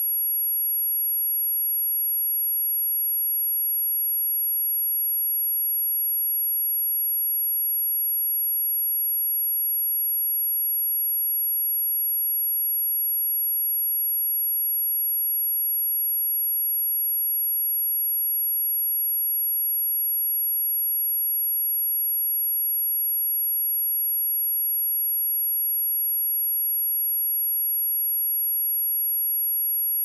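Pure sine-wave test tone at 11377 Hz, a single steady high-pitched whistle at constant loudness, played for testing or cleaning speakers.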